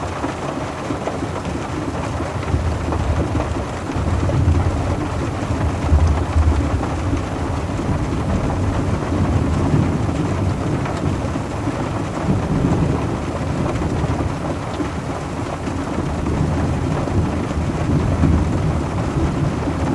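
Steady rain falling on a car, a dense even patter with deep low rumbles of thunder swelling and fading several times.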